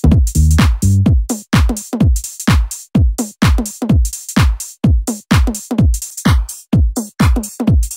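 Tech house music: a drum-machine kick on every beat, about two a second, with hi-hats over it. A low bass line drops out about a second in, leaving the bare beat.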